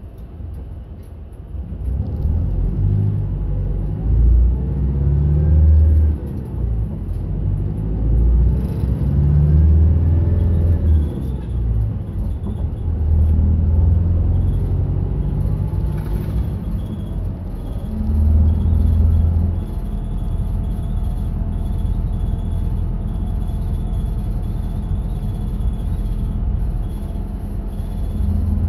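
Route bus engine and drivetrain heard from inside the cabin: the engine pulls up from quiet, rising and falling in pitch several times as the bus accelerates through the gears, then runs steadily at cruising speed.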